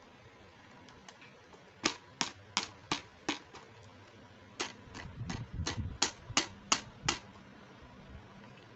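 Hard plastic toy makeup pieces clicking and tapping as they are handled: about five sharp clicks in a row, a short pause, then about eight more, with soft handling noise among them.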